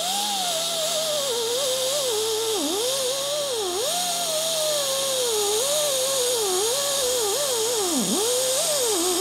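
Small high-speed grinder running on a steel brake bracket, throwing sparks. Its whine sags and dips in pitch again and again as it is pressed into the metal, over a bright grinding hiss, and it winds down with a falling pitch as it is switched off at the end.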